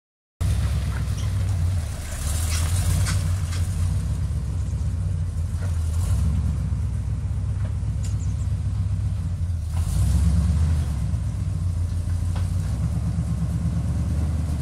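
454 cubic-inch big-block Chevy V8 in a Chevy Silverado 2500 truck, running with a low rumble and picking up briefly a few times.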